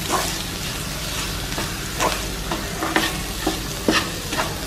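Crushed boiled potatoes and onion masala sizzling gently in a frying pan while a wooden spatula stirs and scrapes through them, with scattered taps of the spatula against the pan.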